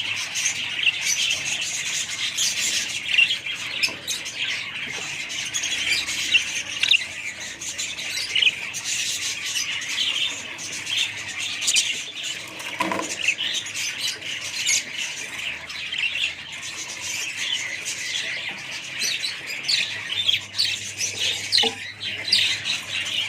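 A flock of budgerigars chattering and chirping without pause, many birds calling over one another.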